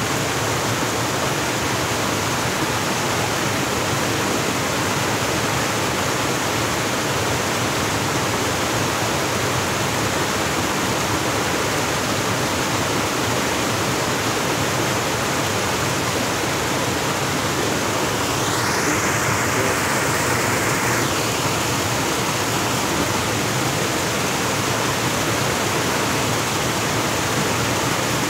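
Steady rush of water pouring down a waterfall into a fast-flowing stream, with a brief higher rushing sound about two-thirds of the way through.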